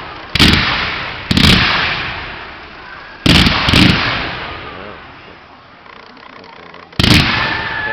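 Aerial fireworks shells bursting: five loud booms, each fading slowly, two close together in the middle and the last after a pause of about three seconds.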